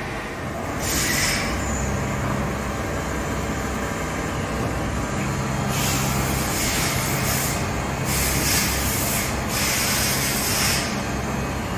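Doosan Puma ST32G CNC lathe running with its coolant on: a steady low machine hum, with several bursts of hissing spray over it, one about a second in and more from about six seconds in.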